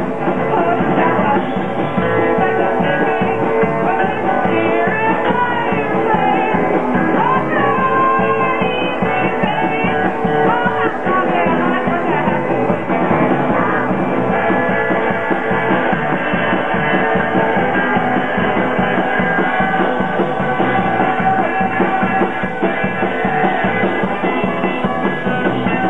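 Live rock band playing: electric guitar, bass guitar and drum kit, at a steady rock tempo.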